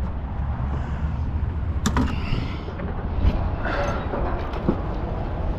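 Wind rumbling on the microphone, with several sharp knocks and clatters, the loudest about two seconds in.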